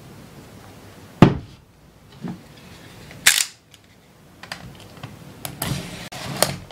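A single loud thump about a second in as the phone box is set down on a tabletop. Then a sharp click, followed by light clicks and scratching as a snap-off utility knife blade cuts along the box's plastic wrap.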